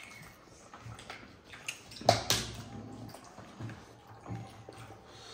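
Eating by hand: fingers squishing and mixing rice on banana leaves, with wet chewing and lip-smacking, as scattered short clicks and smacks. The loudest comes about two seconds in.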